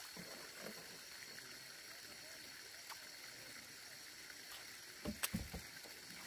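Quiet outdoor ambience: a faint steady hiss with a thin high steady tone, and a few soft low thumps about five seconds in.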